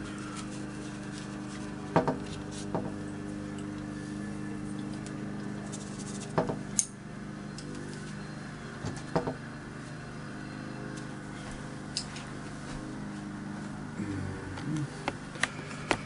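A steady low hum with a handful of light taps and clicks scattered through it, from watercolour painting tools being handled.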